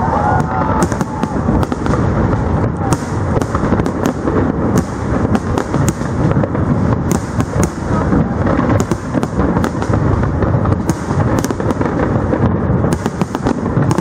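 Aerial fireworks going off continuously: a dense, unbroken mass of bangs with many sharp cracks and crackles standing out throughout.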